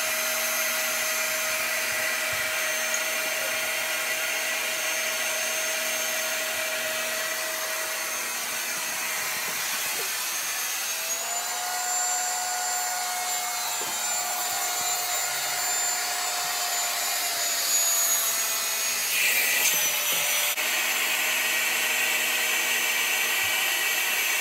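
Small electric air pump running continuously as it inflates a large vinyl swan pool float: a steady motor whine over a rush of air. Its pitch steps up a little about halfway through, then slowly sinks.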